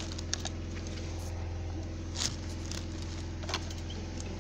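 A steady low hum, with a few sharp clicks and knocks from hands handling the homemade mixer's box and plastic parts.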